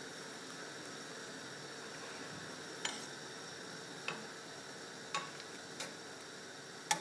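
Pot of water and baking soda boiling steadily while a pretzel is parboiled in it, with five light clicks of a slotted skimmer knocking against the steel pot, roughly once a second from about three seconds in.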